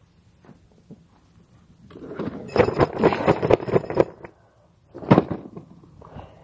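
A folding camp chair being handled and opened: its metal frame rattles and clicks and its fabric seat rustles for about two seconds, starting about two seconds in, followed by one more knock about five seconds in.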